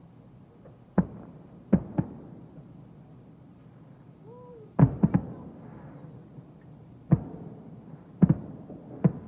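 Aerial fireworks shells bursting, about nine bangs in all, with a close pair early on, a quick triple just before the middle (the loudest) and single bangs after.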